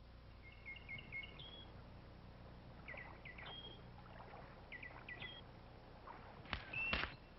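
A songbird singing three short phrases of quick chirps, each phrase ending on a higher held note, over a faint low hum. Near the end come two sharp knocks, the loudest sounds.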